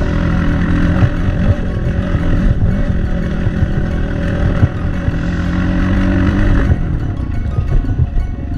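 Motorcycle engine running while riding on a rough dirt track, with frequent clattering knocks over the bumps.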